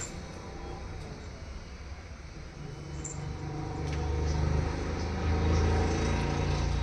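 Low rumble of a motor vehicle, growing louder from about halfway through.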